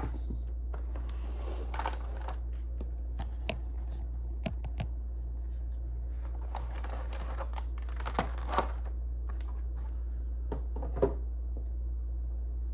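Hands unpacking a boxed model locomotive: scattered light clicks, taps and plastic rustling, with a few sharper clicks past the middle and near the end, over a steady low hum.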